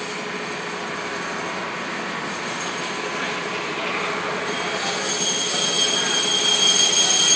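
Bandsaw running and cutting through a foam block, a steady whir. About five seconds in, high whining tones come in and grow louder.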